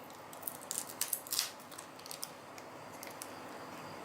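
Sharp clicks and taps of small hand tools and phone parts being handled, several in quick succession around a second in, then fainter scattered ticks over a steady hiss.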